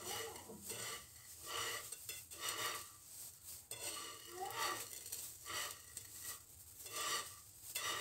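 Hands rubbing and tossing oiled vermicelli noodles on a plate, a soft rustle in uneven strokes a little over one a second, working the oil through the strands.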